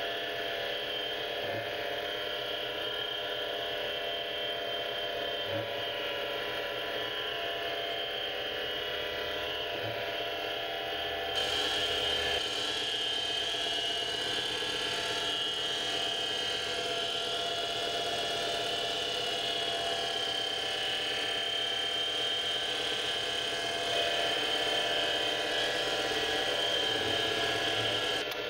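7x16 mini lathe running, its spindle and motor giving a steady whine made of several steady tones, while a carbide tool on a CNC slide turns A2 tool steel. About eleven seconds in, a brighter, louder cutting noise joins and carries on.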